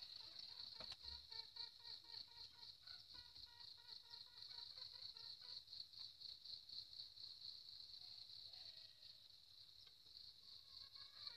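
Faint, steady insect trill, like crickets, pulsing several times a second, with fainter short pitched chirps beneath it.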